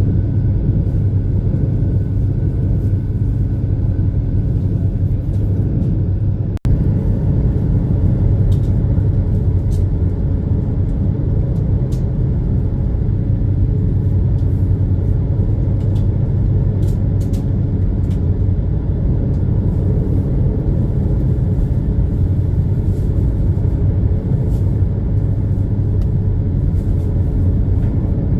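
Steady low rumble and hum of the Super Jet high-speed passenger ship's engines and hull running at cruising speed. The sound briefly cuts out about six and a half seconds in.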